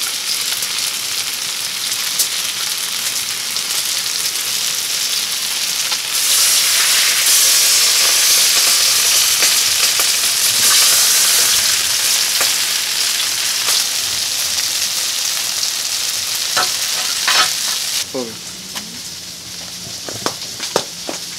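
Food sizzling and frying in a hot plow-disc pan (disco de arado), a dense hiss that swells for several seconds in the middle and drops off sharply near the end, with a few sharp clicks in the last seconds.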